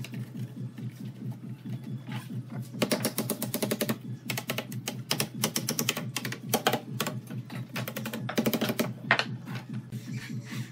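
Wooden mallet tapping thin bent wood strips down into slotted wooden spokes: quick runs of light, rapid taps in several bursts, with pauses between them.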